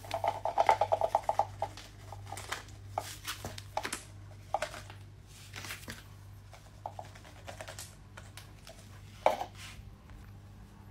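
Dry dog kibble rattling in a plastic cup for about a second and a half, then pieces set down one at a time on a hard floor, a scatter of light clicks with one louder tap near the end. A low steady hum runs underneath.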